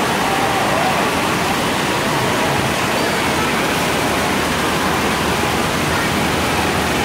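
Steady rushing and splashing of water from splash-pad fountain jets bubbling up out of a shallow pool, with faint voices in the background.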